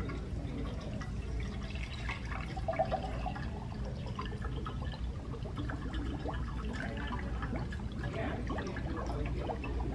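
Water being poured into the reservoir of a facial steamer, with drips and small knocks.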